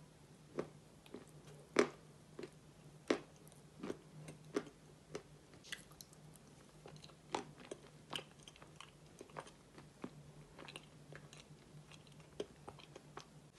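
A person chewing and biting wet chalk and white clay coated in mascarpone cream: moist clicks and soft crunches at an irregular pace, with a faint steady hum underneath.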